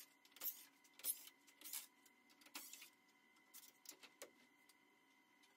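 Near silence broken by about half a dozen faint, short clicks and taps: a cordless drill and the black plastic grille of a 1996 Ford F-250 being handled during removal.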